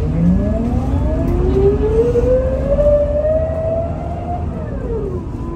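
Scania L94UB bus pulling away, heard from inside the cabin: the low engine rumble under a whine that rises steadily in pitch as the bus gathers speed. Near the end the whine drops sharply as the automatic gearbox shifts up, then settles into a lower, steady tone.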